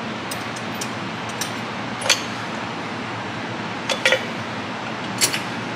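Rear drum brake shoes and their metal hardware being handled onto the backing plate, giving a few sharp metallic clinks spaced a second or two apart, two of them close together about four seconds in, over a steady background hiss.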